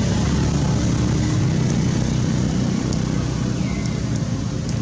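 Steady motor vehicle engine noise with a low hum.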